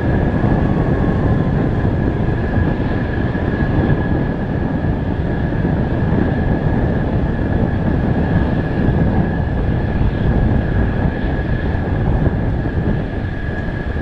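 Mitsubishi F-2 fighter's F110 turbofan running at taxi power as the jet rolls along the taxiway: a steady high whine over a deep, constant rumble.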